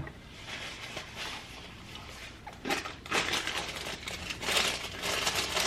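Close-up eating sounds: a run of crackly, crinkling noises from taking and chewing a mouthful of chili, growing louder about halfway through.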